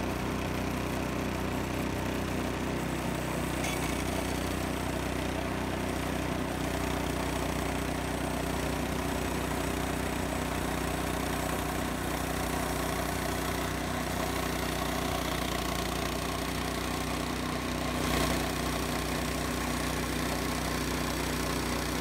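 Small gasoline engine of a Frontier OS18 band sawmill running steadily while its band blade cuts a board off a freshly felled locust cant, with a slight swell in loudness near the end.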